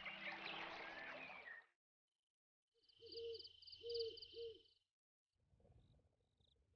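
Faint background music that stops about a second and a half in; after a short silence, an owl hoots three times over a high, pulsing trill, followed by faint rustling.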